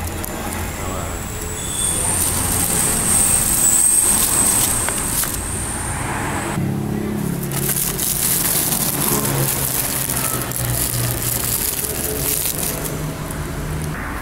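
Clear plastic wrapping crinkling and cardboard rustling as a motorcycle exhaust is handled out of its box, over a low steady drone.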